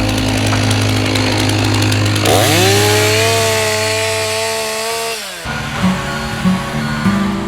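Chainsaw revving up to full throttle about two and a half seconds in, holding its high whine for a couple of seconds, then dropping back off, over background music.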